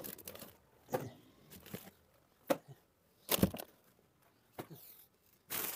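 Scattered short rustles and knocks as snack packets are handled by hand and put into a plastic bag, the loudest about three and a half seconds in.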